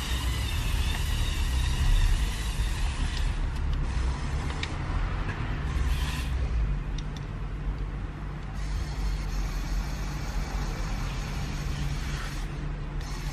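Lego Technic Volvo L350F wheel loader's electric motors and plastic gears running steadily as the model drives forward pushing snow with its bucket.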